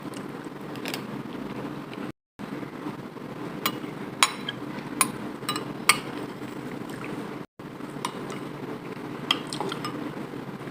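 Scattered sharp clinks of dishes, glass and cutlery being handled, about six in all, over a steady low hum, with two brief gaps of silence.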